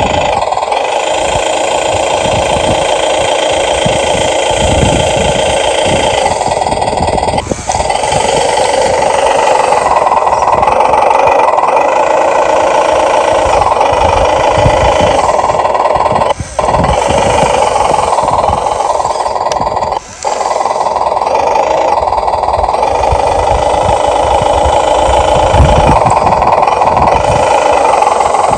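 Radio-controlled toy excavator's motors and gearboxes whirring steadily, with irregular low thumps underneath. The sound drops out briefly three times, around a quarter, a half and two-thirds of the way through.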